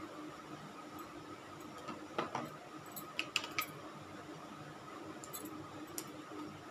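Handling noise as hands work at hair: a few soft clicks and rustles, most of them between about two and three and a half seconds in, with single ticks later. A steady faint hum runs underneath.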